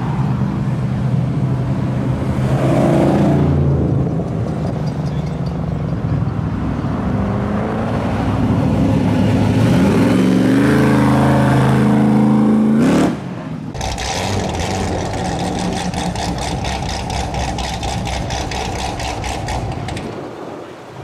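Cars and hot rods driving past one after another with their engines running. About halfway through, one accelerates past with a rising engine pitch. About two-thirds through the sound changes abruptly to a quieter, steadier engine with a fast, even clatter.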